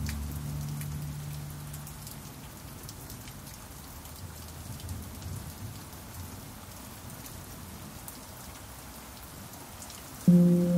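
Steady rain falling, with scattered drop ticks. A low pan drum note rings and fades away over the first couple of seconds, and a new note is struck near the end.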